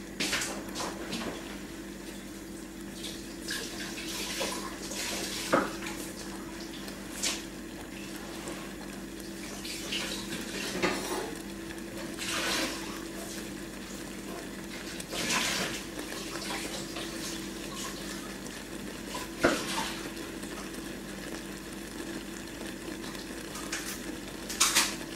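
Scattered clinks, knocks and pops of kitchen activity over a steady low hum, around a pot of thick barbecue sauce bubbling on a gas hob.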